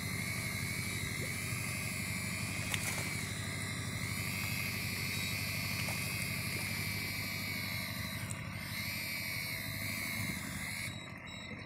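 Electric fishing reel motor winding in line under the load of hooked fish: a steady high whine that wavers slightly in pitch as the load changes, over a low steady rumble. The whine stops near the end.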